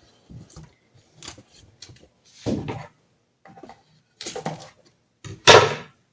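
Clear Scotch tape being pulled from the roll and laid across paper: a series of short, irregular rustling and ripping sounds, the loudest near the end.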